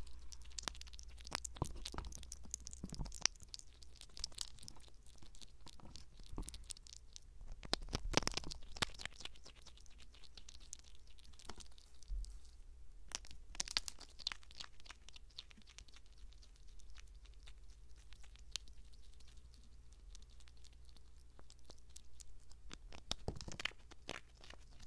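A galago (bushbaby) chewing and crunching food with its mouth right at a microphone: a continuous run of small crisp crackles and bites, busiest in a few spells.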